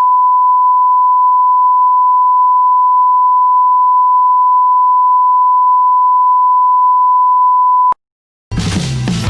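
Steady electronic beep tone held at one unchanging pitch for about eight seconds, then cut off abruptly. Music starts half a second later.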